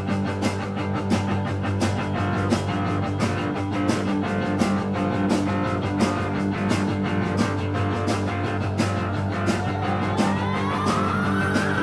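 Rock music with electric guitar over a steady drum beat, with a rising glide in pitch near the end.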